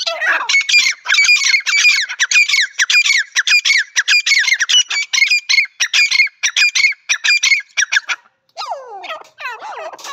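Grey francolin calling: a loud, rapid run of shrill notes, about five a second, each falling in pitch. After a short break near the end, the calls go on in lower, longer falling notes.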